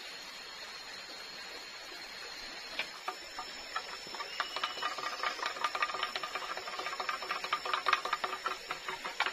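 Quick light knocks of a small blade working against bamboo. They begin about three seconds in and come faster and more evenly toward the end, several a second, over a steady high hiss.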